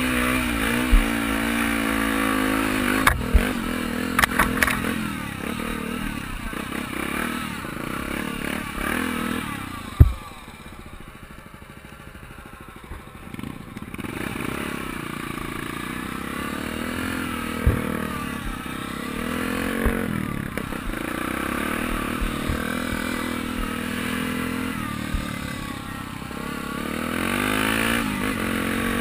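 Honda XR 250 Tornado's single-cylinder four-stroke engine revving up and down under a rider on a dirt trail. About ten seconds in it drops back off the throttle for a few seconds, then pulls again. Sharp knocks and clatter from the bike over bumps.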